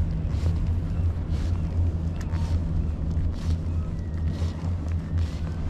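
Low, steady rumble of a small boat's motor, with soft water splashes about once a second.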